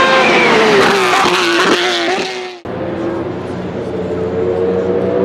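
Race car engine passing, its pitch falling with a couple of short breaks like gearshifts, then cut off abruptly. After that a quieter race car engine runs on at a distance, its pitch slowly rising.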